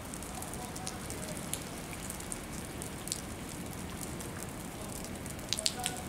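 Light rain: a steady hiss with scattered sharp ticks of drops, a quick cluster of them near the end.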